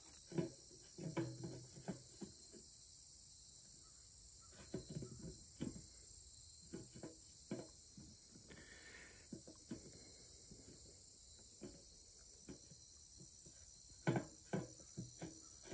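Crickets chirring steadily in the grass, with scattered soft knocks and clicks from a dog mouthing a rubber ball against a metal pan.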